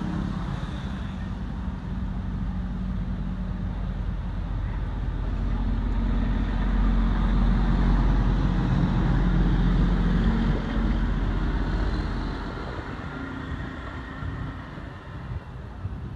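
A motor vehicle engine running: a low, steady hum that grows louder about five seconds in, peaks, then fades away after about twelve seconds.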